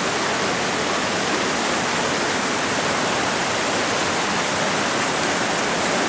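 Steady rush of a small waterfall, white water pouring over rock into a pool.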